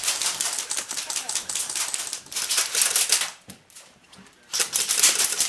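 Airsoft guns firing in rapid full-auto bursts, a fast run of sharp clicks. One burst lasts about three seconds, and another starts about a second before the end.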